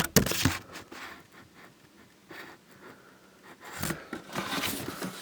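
Cardboard box being handled and turned over. There are a few sharp knocks right at the start, then rubbing and scraping of cardboard toward the end.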